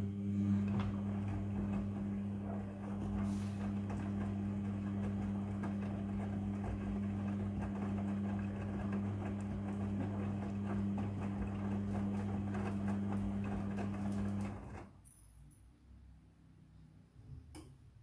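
Midea front-loading washing machine turning its drum in the wash cycle: a steady motor hum with wet laundry tumbling and clicking against the drum. It starts suddenly and cuts off about fifteen seconds in, as the drum pauses between turns.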